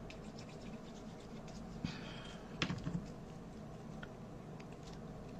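Faint scraping and rustling of cardstock as cut paper brick shapes are slid into place and pressed down onto a card, with a few light taps between about two and three seconds in.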